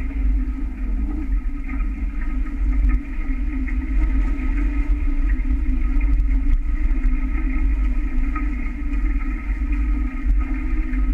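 Wind buffeting the microphone and water rushing along the hulls of a small catamaran under sail: a steady low rumble with a constant hiss and hum above it.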